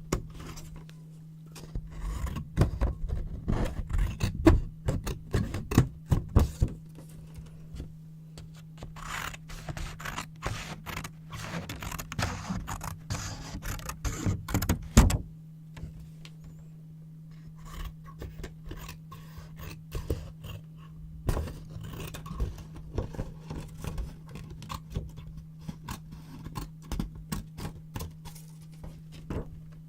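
Scissors cutting yellow paper close to the microphone, in a run of crisp snips mixed with paper rustling and scraping, pausing briefly about halfway through. A steady low hum sits underneath.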